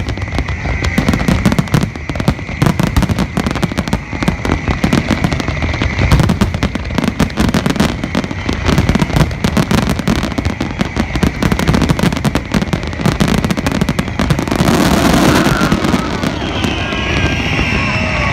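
A fireworks display going off in a rapid, continuous barrage of bangs and crackles. About three-quarters of the way through comes a louder, longer hissing burst.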